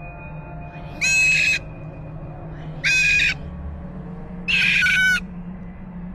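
Pet parrot giving loud, harsh screeching calls, about half a second each, repeated four times at intervals of one and a half to two seconds.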